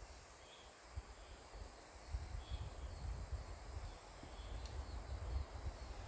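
Forest ambience: a steady high insect drone, with a short bird call repeating about every two seconds. An uneven low rumble on the microphone sets in about two seconds in and is the loudest part.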